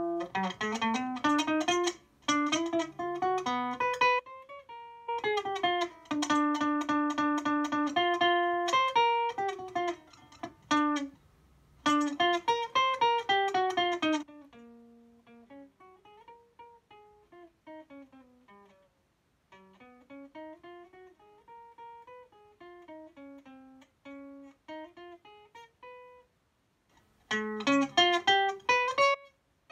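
Acoustic guitar played fingerstyle: quick runs of single plucked notes and arpeggios, loud at first, then a softer passage through the middle, then loud again near the end.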